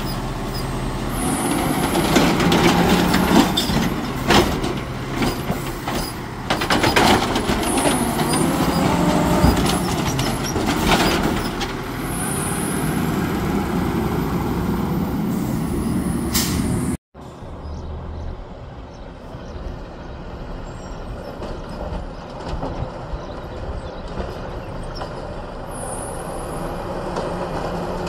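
Autocar WX64 automated side-loader garbage truck running up close while its Amrep hydraulic arm grabs, lifts and dumps a cart, with metallic knocks and clanks and several short air-brake hisses. About two-thirds through, the truck is heard farther off, quieter and steady, with one more air hiss near the end.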